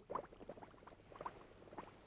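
Faint, irregular bubbling: a cartoon water sound effect of small bubbles popping and plopping in quick, uneven succession.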